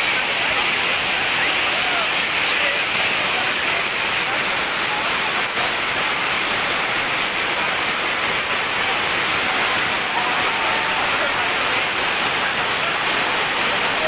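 Waterfall pouring down a rock cliff, a steady, loud rush of falling water. Indistinct voices of a crowd of people mingle with it.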